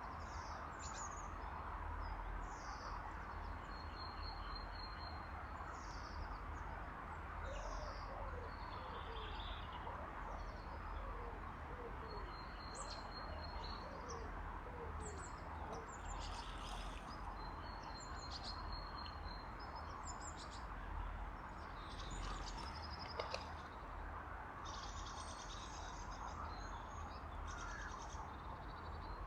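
Small songbirds chirping and calling in short, scattered high notes, many times, over a steady background hiss.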